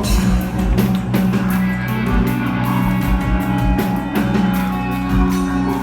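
Rock band playing live: guitars and bass holding low notes over a drum kit, with regular kick-drum and cymbal hits.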